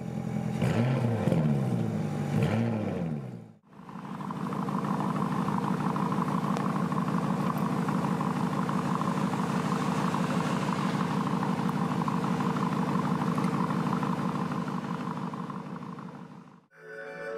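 Lamborghini Urus 4.0-litre twin-turbo V8 exhaust: two quick revs, each rising and falling, in the first few seconds. After a brief cut the engine idles steadily, then fades out near the end.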